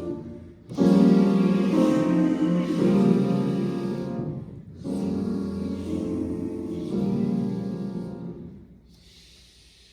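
Choir singing sustained chords with piano accompaniment, in phrases with short breaks between them. The last chord dies away about eight and a half seconds in.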